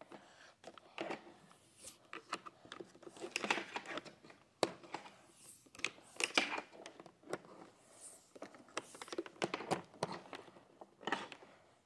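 Vacuum cleaner's power cord being wound up by hand: irregular clicks and knocks of cord and plug against the plastic body, with rustling.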